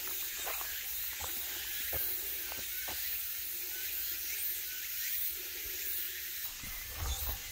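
Steady high-pitched hiss of a summer insect chorus in dense woodland, with a few light ticks and a low bump near the end.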